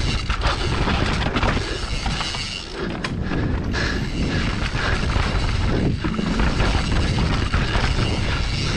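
Wind rushing over an action-camera microphone on a fast mountain-bike descent, with tyres on loose dirt and the bike clattering over roots and rocks.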